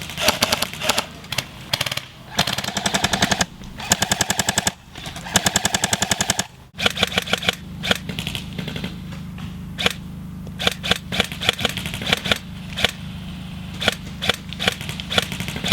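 Airsoft electric guns firing BBs on full auto: four loud, rapid rattling bursts in the first six or so seconds, then quieter single shots and short bursts.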